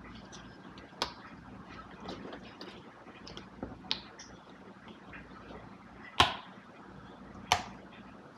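A few sharp clicks and light knocks from a hand handling a cardboard cream carton on a kitchen counter, the two loudest about six and seven and a half seconds in, over faint room noise.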